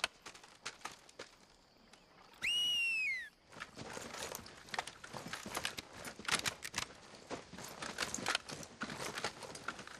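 A single high call, falling in pitch and lasting under a second, about two and a half seconds in. Then a busy, irregular clatter of horse hooves and jingling tack.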